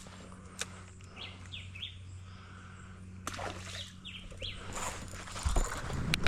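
Birds calling in short, falling chirps, repeated several times, over a steady low hum. A few sharp clicks and a low thump near the end.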